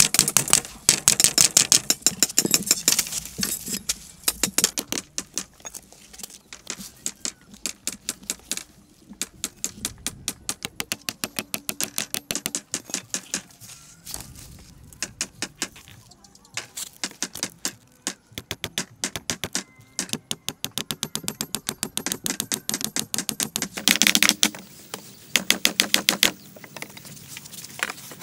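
Rapid series of sharp clicks and light knocks, several a second, with short pauses between runs: hand tools working bamboo.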